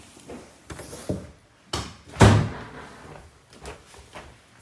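A room door being pulled shut, its loudest thud about two seconds in, among several lighter knocks of handling and steps.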